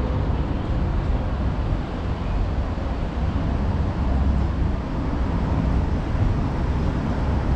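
Steady low rumble of outdoor background noise, heaviest in the deep bass and wavering slightly.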